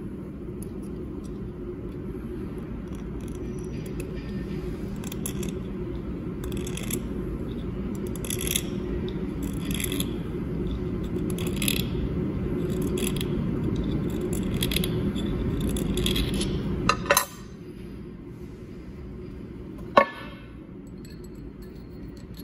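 Hand file scraping a small metal part in short strokes, about one every second and a half, over a steady low hum that cuts off suddenly about seventeen seconds in. A single sharp metallic clink near the end.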